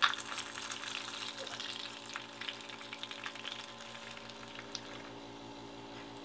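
Rockfish frying in oil in a small non-stick pan as it is pressed down: a faint sizzle with scattered small pops, livelier in the first few seconds and then settling. A steady low hum runs underneath.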